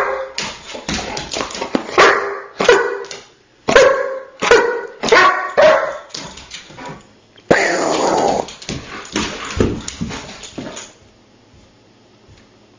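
German Shepherd barking and whining in a run of short yelps and drawn-out, wavering cries, with a harsher, rougher cry about seven and a half seconds in. These are the dog's vocal theatrics while it performs its play-dead trick.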